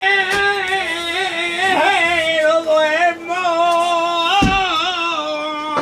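Flamenco cante of a soleá: a solo singer drawing out a long, ornamented phrase, holding notes that waver and turn in pitch with only brief breaks for breath.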